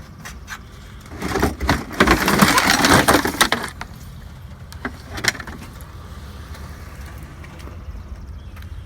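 Scrap being picked up and handled from a curbside pile: a couple of seconds of rattling and scraping with many clicks, then a single sharp knock.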